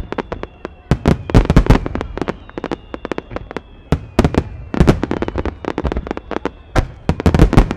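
A finale barrage of aerial firework shells bursting and launching, with many overlapping loud bangs that come in dense clusters about every second or two.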